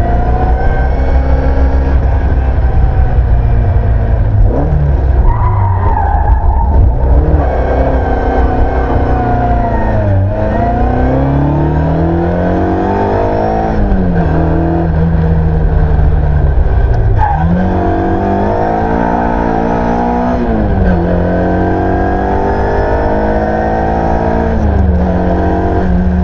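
Ford Escort Mk1 rally car's engine, heard from inside the cabin, driven hard through the gears: its pitch climbs under full throttle and drops back sharply at each gear change or lift, several times over.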